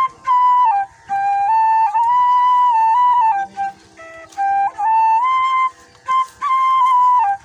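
Bansuri (bamboo flute) ringtone melody: short phrases of held notes with small slides between them, separated by brief pauses.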